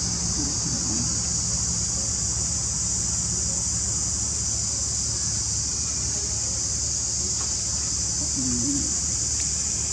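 Steady high-pitched insect chorus over a low background rumble.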